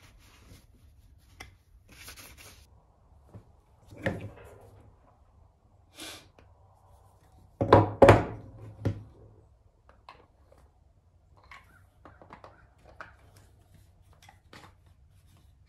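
Wooden thunks and knocks as an antique wooden plough plane and its iron are handled on a wooden workbench, loudest in a quick cluster about eight seconds in, with lighter clicks and rag rustling around them.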